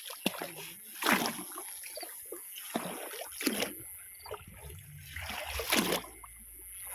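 Water splashing in three separate swishes, about every two and a half seconds, with trickling water between them.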